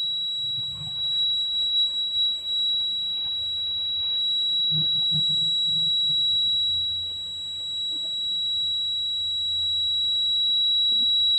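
Piezo buzzer of a homemade smoke-detector circuit sounding one steady, high-pitched tone without a break: the alarm set off by smoke reaching the smoke sensor.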